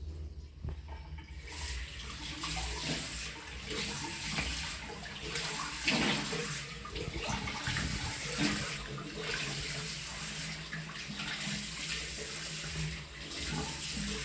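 Tap water running into a sink, starting about a second in, with irregular splashes as water is scooped up to wet a face.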